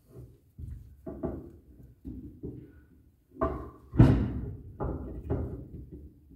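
Irregular heavy metal clunks and knocks, about eight of them with the loudest about four seconds in, as a Ford 9-inch differential carrier is worked into the axle housing and is not yet sitting flush.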